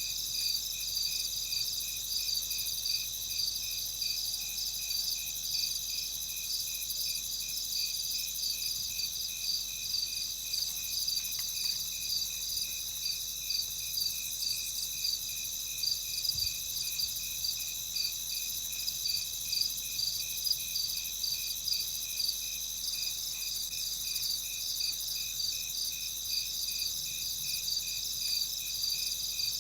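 Crickets chirping in a steady, even rhythm that runs without a break: a night-time insect chorus.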